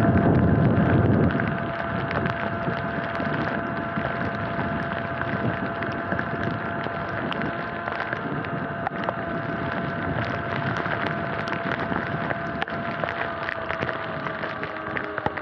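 Sur-Ron electric dirt bike riding on a wet road: a steady, high electric-motor whine over the hiss of tyres on wet pavement. Wind buffets the microphone loudly for the first second or so and then eases, and the whine dips slightly in pitch near the end.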